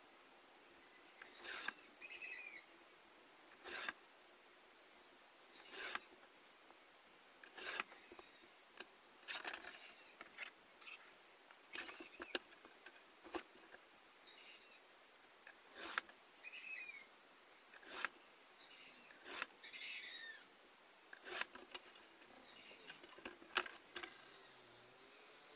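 Craft cutter drawn along a steel ruler, scoring a sheet of board in short strokes about every two seconds.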